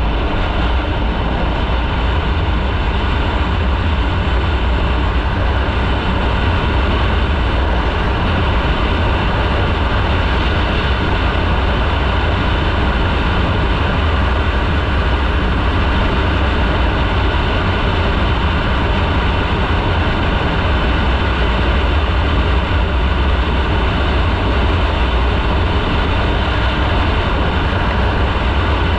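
Motorcycle riding at a steady speed: engine, road and wind noise running loud and even, with a deep low rumble underneath.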